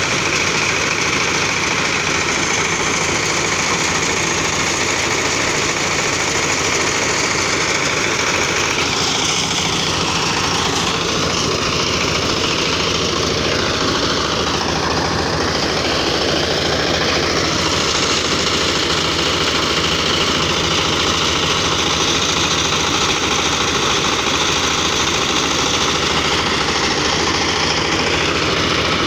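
Two-wheel tractor's diesel engine running steadily under load, driving a paddy threshing drum as rice stalks are fed in, a continuous machine drone with no pauses.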